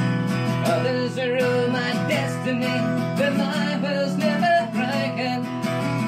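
Background music led by strummed acoustic guitar, with a wavering melody line over it.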